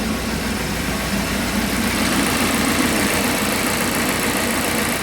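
Volvo XC90 plug-in hybrid's four-cylinder petrol engine idling steadily but vibrating too much: a rough idle from a misfire.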